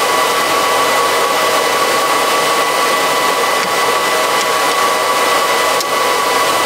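Tractor and planter running steadily: an even rush with a constant high whine.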